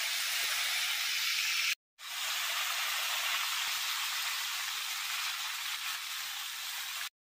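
Raw banana slices deep-frying in hot oil, sizzling hard as spoonfuls of salt-and-turmeric water are sprinkled into the oil. The sizzle cuts out for an instant about two seconds in and stops abruptly shortly before the end.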